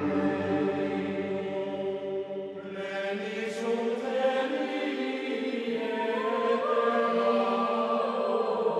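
Background music of choir-like chanting on long held notes, the chord changing a few times.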